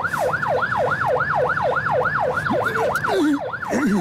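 Police siren in fast yelp mode, its pitch sweeping up and down about three times a second without a break. A man's voice cuts in briefly near the end.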